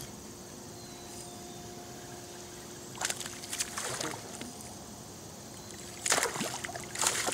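A hooked smallmouth bass splashing at the water's surface while being reeled in, twice: about three seconds in and again near the end.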